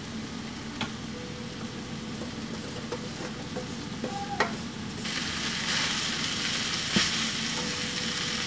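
Taco-seasoned ground meat sizzling in a nonstick frying pan as drained corn and black beans are tipped in from a metal colander and stirred with a wooden spatula. The sizzle gets louder about five seconds in, with a few light knocks.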